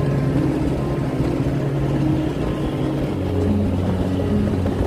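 Motorbike engine running steadily, mixed with road and wind noise from riding in traffic.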